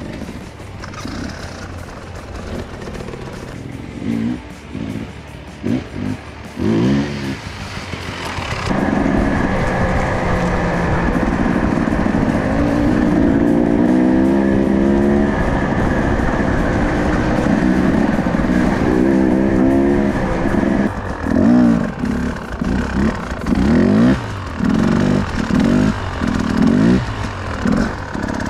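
Enduro dirt bike engine revving in short throttle bursts, rising and falling in pitch. About a third of the way in it settles into a steadier, louder run at higher revs, then goes back to repeated quick blips near the end.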